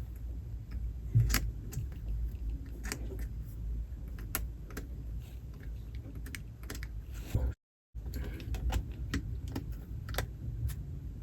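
Scattered light clicks and taps at irregular intervals from small plastic and metal laptop hinge parts being handled during a repair, over a steady low hum. The sound cuts out completely for a moment about two thirds of the way through.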